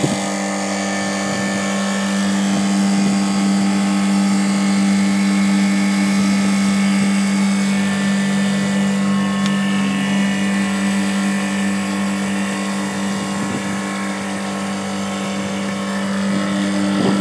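Copeland refrigeration compressor and its condensing unit running steadily with a strong, even hum, started with the starter's overload linked out: the unit runs, pointing to a faulty overload rather than a refrigerant pressure trip.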